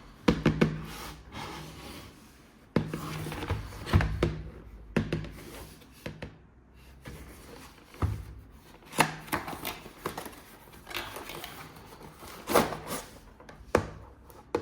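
Plastic toys and packaging being handled: irregular clicks, knocks and rubbing, with several sharper knocks spread through.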